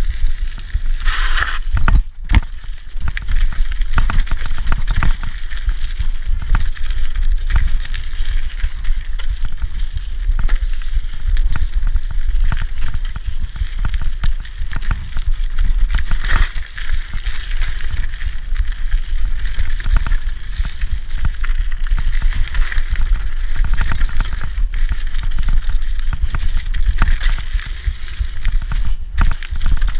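A 1990 Peugeot Hurricane, a rigid vintage mountain bike on Michelin Wildgripper tyres, ridden fast down dirt singletrack. The tyres rush and crunch over the dirt, the frame and drivetrain rattle and knock over bumps many times, and a steady low rumble runs underneath.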